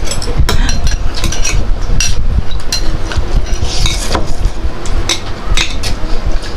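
Cutlery clinking and scraping against a bowl during a ramen meal: many short clicks, over a steady low rumble.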